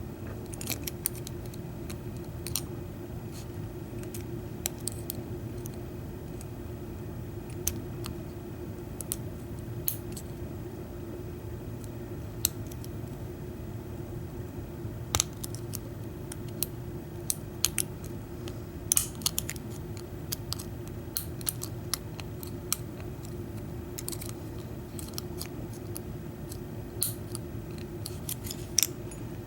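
Small metallic clicks and ticks of a lock pick and tension wrench working inside an American 700 padlock, coming irregularly over a steady background hum.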